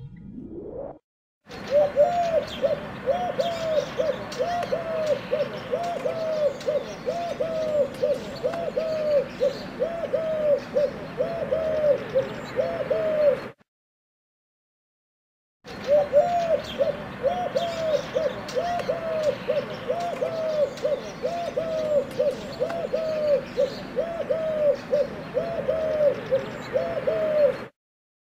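Pigeon cooing: a long run of short rising-and-falling coos, about two a second. The run comes in two stretches with about two seconds of silence between them, and a brief rising sweep comes just before the first.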